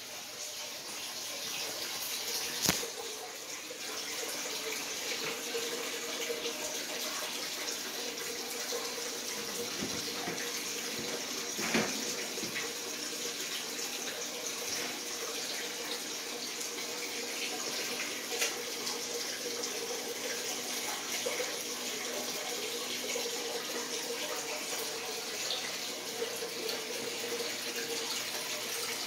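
A steady rushing noise, like running water, with a constant low hum under it, lasting the whole time. A few short, light knocks stand out, about three seconds, twelve seconds and eighteen seconds in.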